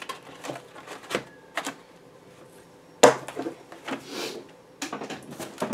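Stacks of cardstock journaling cards being flipped through and set down in a plastic card organizer box: a series of light clicks and taps, with a sharper knock about three seconds in and another near the end.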